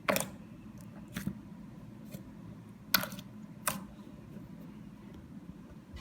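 Slime being pressed and stretched by hand, giving about five sharp pops or clicks spaced irregularly, the loudest ones just after the start and about three seconds in, over a steady low hum.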